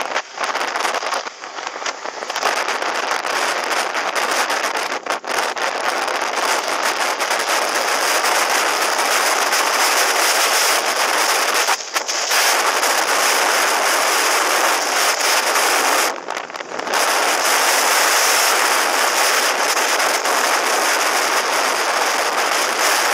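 Wind rushing over a helmet-mounted camera's microphone on a motorcycle at highway speed: a loud, steady rush that drops away briefly about four times.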